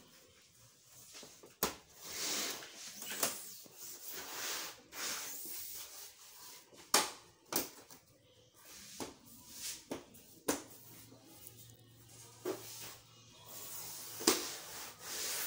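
Plastic rear cover of a Samsung LED TV being fitted back on by hand: a series of sharp plastic clicks and knocks, about half a dozen, with rustling handling noise in between.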